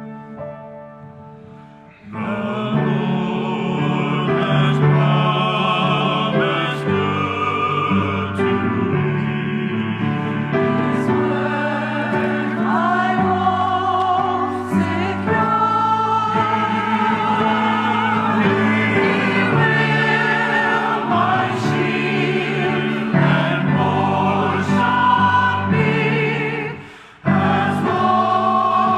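Church choir singing an anthem with accompaniment, entering strongly about two seconds in and breaking off briefly near the end before the next phrase.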